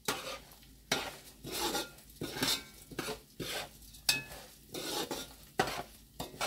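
Slotted metal spoon stirring and scraping rice around a metal pot, in irregular strokes about twice a second, with a few sharp clinks of the spoon against the pot, one about four seconds in ringing briefly.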